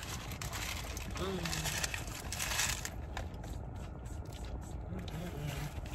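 A double cheeseburger being bitten and chewed, with its paper wrapper crinkling, over a low steady rumble inside a car. Two short hummed sounds come about a second in and near the end.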